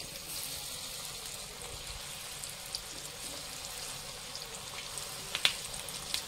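Marinated chicken pakodi pieces deep-frying in hot oil in a kadhai over a medium flame, a steady sizzle with scattered crackles as fresh pieces are dropped in. A couple of sharp pops stand out about five and a half seconds in.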